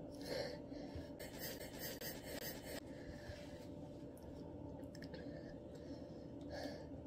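Quiet mouth breathing and sniffs from people reeling from the heat of Carolina Reaper peanuts, with a soft hiss of air lasting under two seconds about a second in.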